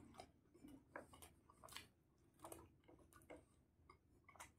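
Near silence with faint, scattered mouth clicks and chewing sounds from a man eating fried chicken 65 with his fingers.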